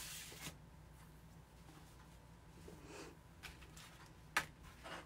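Faint rustling and light taps of a Chalk Couture adhesive transfer stencil sheet being handled and laid onto a wooden cutout, with one sharper tap a little after four seconds in, over a low steady hum.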